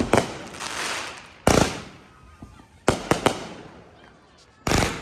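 Fireworks going off in a string of sharp bangs, one about every second and a half, with three quick bangs close together about three seconds in, each bang trailing off into a fading rumble.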